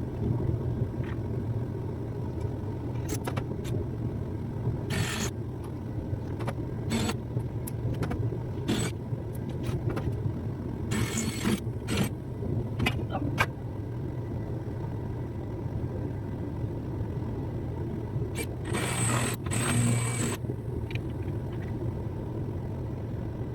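Garage bench work on a rusty floor patch being taken apart: scattered metal clicks and clanks and three short harsh bursts of about a second each, over a steady low hum.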